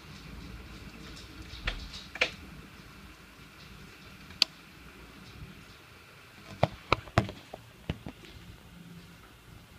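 Steady hiss of a heavy hail and rain shower, with scattered sharp ticks of hailstones striking a window pane: two about two seconds in, one midway, and a quick cluster near the end.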